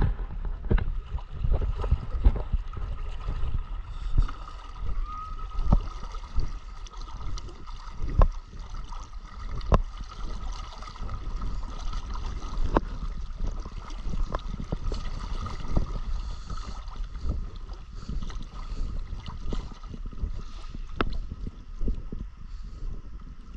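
Water sloshing and splashing around the legs of someone wading through a shallow river, uneven in rhythm, with scattered sharp knocks and a low rumble throughout.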